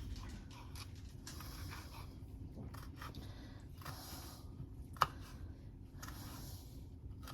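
Knife slicing pickles on a cutting board, heard faintly: a few soft scraping cuts and small clicks, with one sharp tap of the blade on the board about five seconds in.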